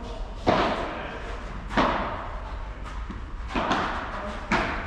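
Padel rally: the ball struck by padel rackets and bouncing, four sharp pops a second or so apart, each with a short echo.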